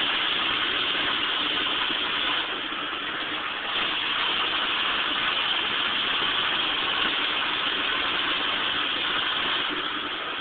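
Vehicle engine running with road noise, heard from inside the cab while driving slowly over a rough dirt logging road. The noise is steady, with a short dip in loudness about two and a half seconds in.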